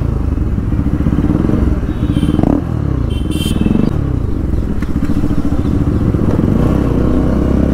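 Bajaj Pulsar RS200's single-cylinder engine running through a loud exhaust at low road speed, the engine note rising and falling with the throttle.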